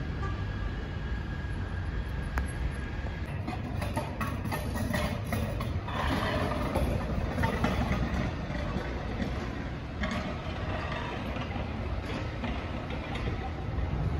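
City traffic ambience: a steady low rumble of road traffic, growing busier and a little louder for a few seconds in the middle.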